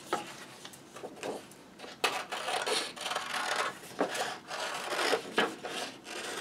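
Scissors cutting a circle out of brown paper: a run of short snips with the paper rustling, sparse in the first two seconds and coming steadily from about two seconds in.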